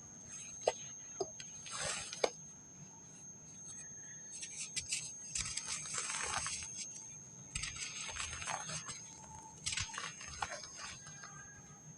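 Dry packed sand crumbling and breaking apart in several gritty crunching bursts, with short pauses between them and a few sharp cracks near the start.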